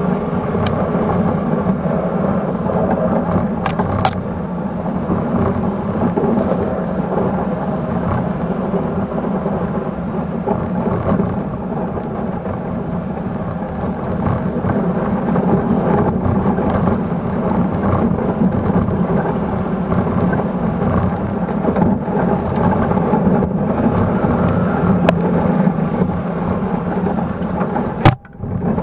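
Steady rumble of a snow plow blade on a Suzuki Carry mini truck pushing and rolling heavy snow across pond ice, mixed with the truck's engine running under load. A sharp click and a brief break in the sound come near the end.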